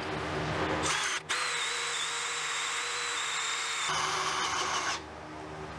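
Cordless drill driving a hole saw through a wooden board: the drill starts about a second in and runs at a steady whine with one brief break, then stops about five seconds in.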